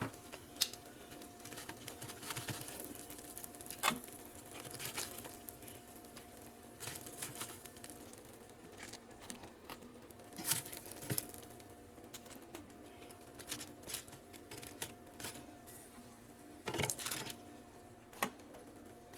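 Scattered clicks, knocks and light clatter of kitchen things being handled during cooking, over a faint steady appliance hum. A few louder knocks come about four seconds in, around ten to eleven seconds in, and near the end.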